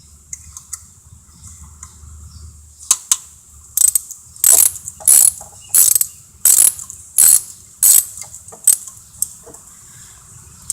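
Socket ratchet wrench ratcheting in repeated back-strokes, about seven bursts of clicks roughly 0.7 s apart, while loosening a bolt during engine teardown.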